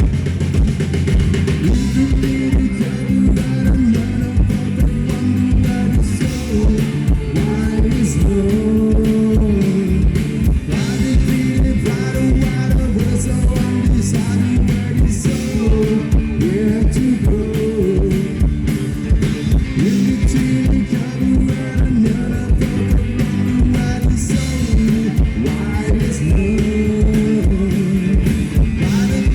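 Live rock band playing a song, with electric guitar over a steady drum beat.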